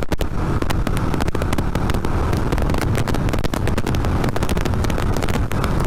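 Yamaha Vixion's 150 cc single-cylinder engine running steadily while riding at around 45–50 km/h, mixed with a dense crackle of wind buffeting the microphone.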